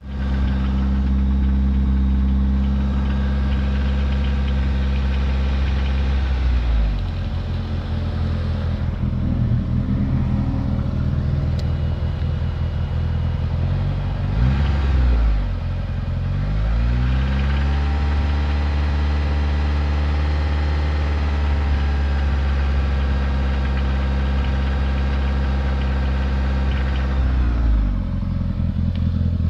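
DSM car engine running, mostly at idle with the engine speed dipping and rising a few times, with rod knock: a worn connecting-rod bearing.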